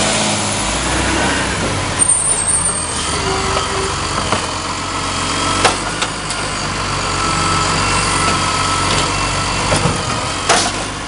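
Side-loader garbage truck's diesel engine running while its automated arm lifts a wheelie bin, tips it into the hopper and lowers it back down, with sharp knocks from the bin and arm, one about midway and one near the end.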